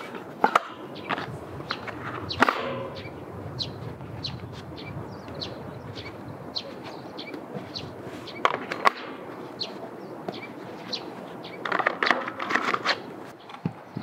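Leather-gloved hands handling a cardboard box of match-type firelighters and breaking a stick off the block: scattered light clicks and rustles, busiest about eight and a half seconds in and again near the end.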